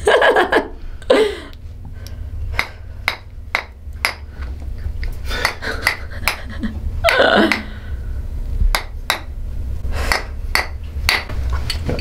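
A chiropractic adjusting mallet striking an instrument held at the base of the skull: more than a dozen sharp knocks at uneven spacing, with a few short voice sounds from the patient.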